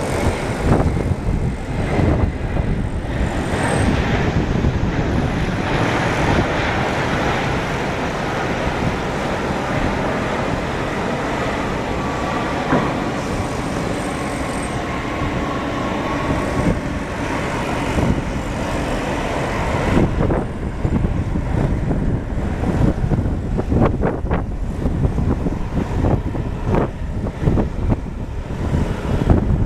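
Jet engines of a Boeing 767-300ER on landing: a loud, steady rushing roar that fills the first two-thirds. Over the last third it gives way to gusty wind buffeting on the microphone.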